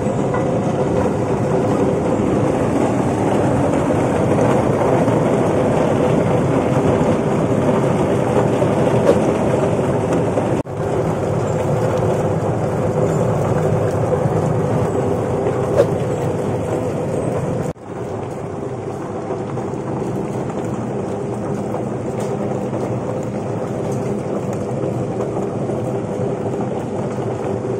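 Onion peeling machine running steadily with water from a hose washing through its spinning drum, the motor humming under the churning and splashing of water as wet onion skins drain out of the outlet.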